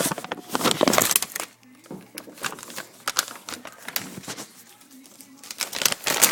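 Plastic dog-treat bag crinkling and rustling as treats are fished out, loudest in the first second and again near the end.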